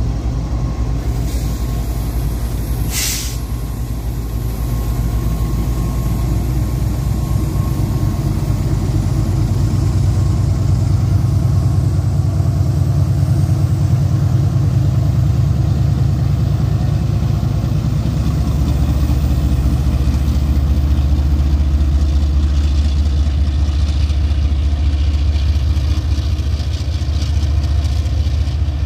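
GE GEU-40 diesel-electric locomotive pulling a train away, its diesel engine working with a deep, steady throb that grows louder about ten seconds in and settles lower in pitch around eighteen seconds. A short hiss sounds about three seconds in.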